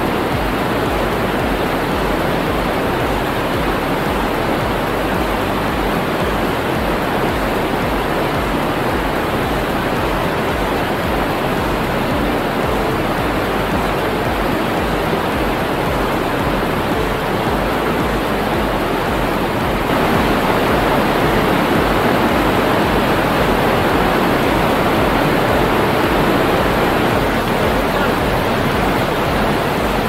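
Steady, loud rushing roar of a tall waterfall in full spate, its water flowing very hard. It gets a little louder about two thirds of the way in.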